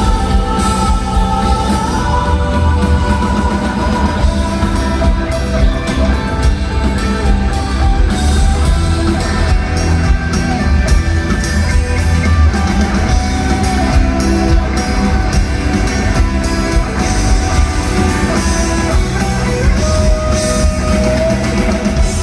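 Live band music with guitar and drum kit, played loud and continuous through a stadium sound system.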